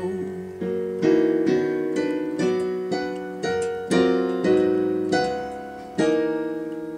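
Electronic keyboard on a piano sound playing a string of chords, each struck and left to ring and fade before the next.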